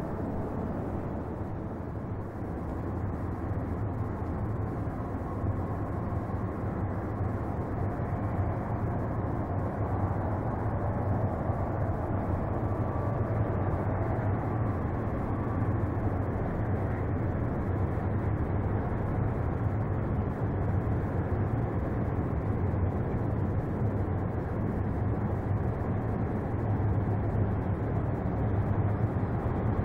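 Distant BNSF diesel locomotives approaching: a steady low engine rumble that grows a little louder near the end.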